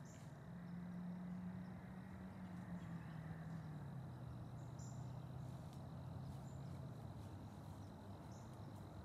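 Faint outdoor quiet with a distant engine's low drone that steps down in pitch over several seconds and fades near the end. Under it runs a thin steady high whine, with two brief high chirps.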